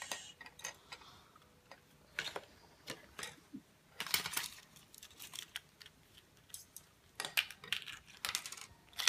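Scattered small clicks and crinkles from a chocolate surprise egg and its plastic toy capsule being handled and opened, in short clusters with pauses between.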